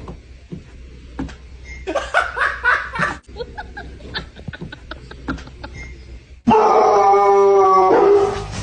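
A dog's short yips and whines among light clicks and knocks, then a loud, sustained pitched sound that starts suddenly about two-thirds of the way through.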